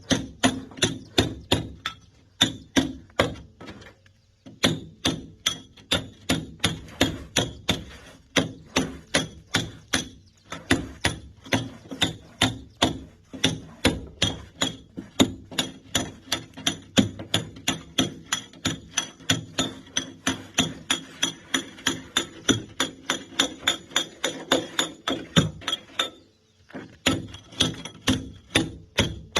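A mason's hammer striking a steel chisel to chip concrete, in steady ringing blows of about three a second. There is a brief pause about four seconds in and another near the end.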